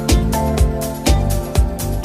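Background music with a steady beat, about two beats a second, and sustained pitched notes.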